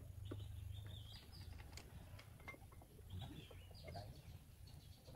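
Faint bird chirps in two short clusters, over a low steady hum and a few light clicks.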